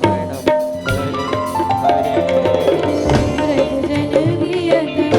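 Instrumental interlude of a live Indian devotional bhajan band: a melody line steps down note by note over tabla strokes and a steady held drone, with no singing.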